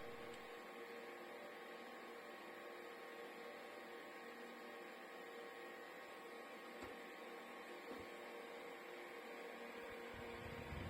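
Small OCOOPA battery-powered USB desk fan running steadily: a faint, even hum with a few steady motor tones.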